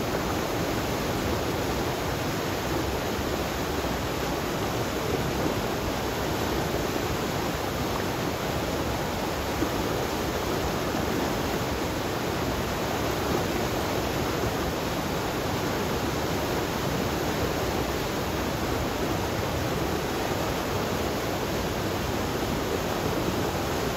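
Flood-swollen river after torrential rain, muddy water rushing and churning into white water over a drop in its concrete-lined channel. The sound is a steady, unbroken rush of water.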